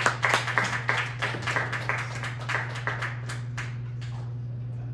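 A cinema audience applauding at the end of the film, the claps thinning out and dying away about three or four seconds in, over a steady low hum.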